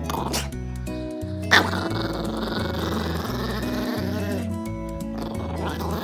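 Background music with steady bass notes, over which an angry Pomeranian puppy growls and snarls. One short, sharp sound stands out about a second and a half in.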